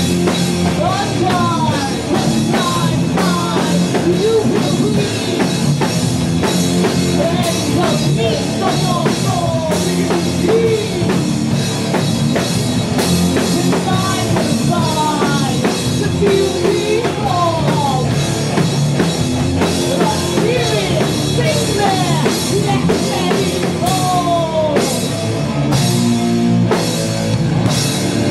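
Doom metal band playing live: electric guitars, bass guitar and drum kit. A high line above the riff slides down in pitch every couple of seconds.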